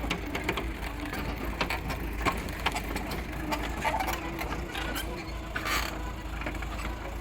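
Excavator at work: its engine running steadily under many irregular sharp clicks and knocks.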